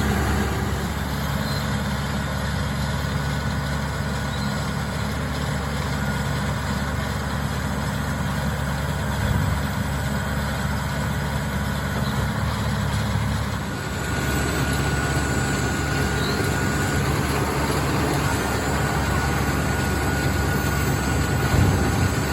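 John Deere 5085M tractor's diesel engine running steadily under load, driving a round baler. About two-thirds of the way through, the sound shifts and a thin, steady whine joins it.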